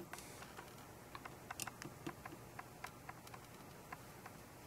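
Faint, irregular light clicks and ticks, a few a second, from fingers handling a carbon-fibre quadcopter frame and its power distribution board.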